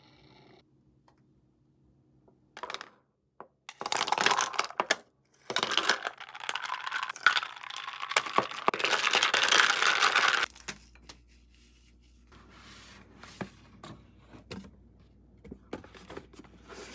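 Crinkling and tearing of packaging for several seconds, densest from about a third of the way in until just past the middle, followed by scattered clicks and light knocks.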